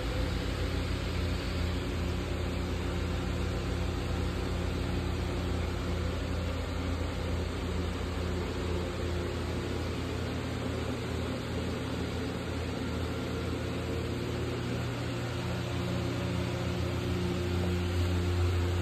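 Electric blower fans of inflatable Christmas decorations running: a steady whirring hum with a hiss of moving air.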